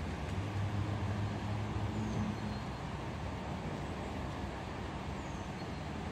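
Steady low rumble of motor traffic, with a low hum running through it.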